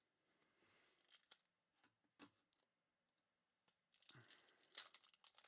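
Faint crinkling and tearing of a trading-card pack wrapper being opened, with the cards being handled: a few short crackles, then a busier run of crinkling about four seconds in.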